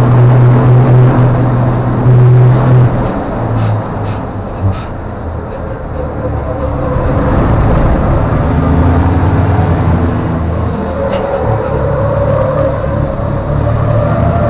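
MAN race truck's diesel engine heard from inside the cab at racing speed: a strong steady drone that drops off about three seconds in, a few sharp clicks around four seconds, then the engine building up again under load.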